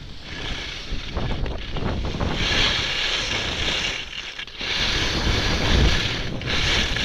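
Wind buffeting the microphone of a skier's body-worn camera during a downhill run, with the hiss of skis sliding on snow. The hiss gets louder about two and a half seconds in and again about five seconds in.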